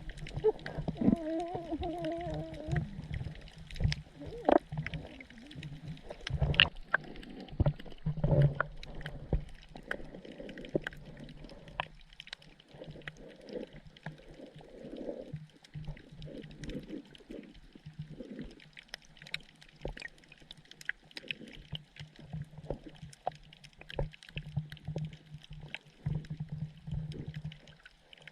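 Sergeant major damselfish calling underwater: short grunts and pops among many sharp clicks, with a wavering drawn-out call in the first few seconds. Sounds of this kind may be for courting a female or holding territory.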